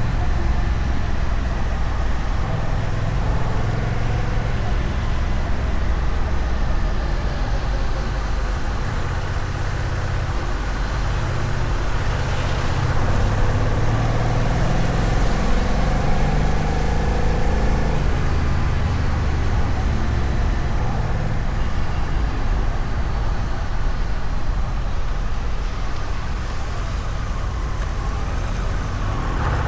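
Honda Rebel 1100 DCT's parallel-twin engine through its stock exhaust, running steadily at a constant 60 km/h cruise on cruise control, with road noise.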